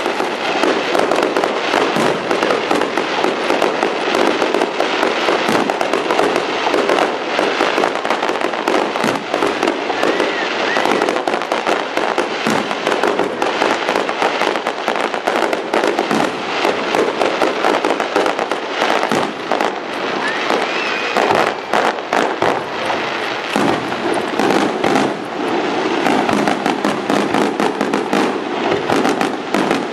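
Fireworks display: aerial shells and ground fountains going off in a dense, near-continuous barrage of bangs and crackles with no pause.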